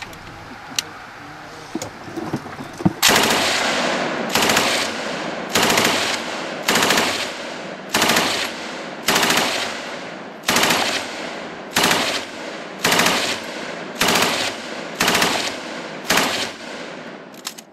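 Belt-fed machine gun firing from a bipod. About three seconds in it opens with a longer burst, then fires a string of about a dozen short bursts, roughly one a second.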